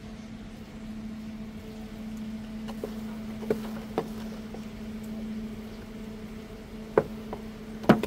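Honeybees buzzing around an opened hive: a steady, even hum with a few light knocks from frames or the hive being handled, one about halfway through and two near the end.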